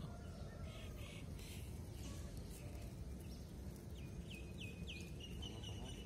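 Steady outdoor background noise over farmland, with a bird calling about four seconds in: three quick chirps falling in pitch, then a steady high note.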